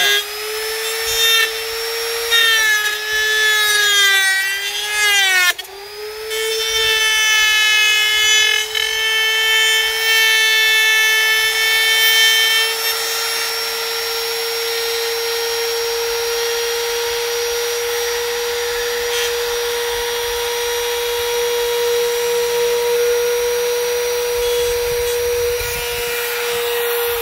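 Compact trim router with a V-groove bit cutting along an aluminium T-slot extrusion, a high steady whine. For the first few seconds the pitch dips and wavers as the bit bites in, then the cut runs harsher and rings for several seconds before settling into steadier running. The motor starts winding down at the very end.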